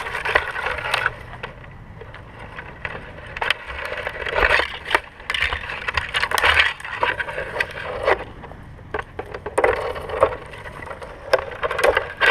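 Tree climber moving on a hemlock trunk: irregular rustling and scraping of bark and branches close to the microphone, with a few sharp knocks.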